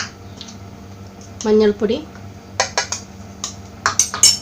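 A spoon clinking and tapping against a bowl as spoonfuls of spice powder are added to a masala paste: a few quick sharp clinks past the middle, and a louder cluster near the end.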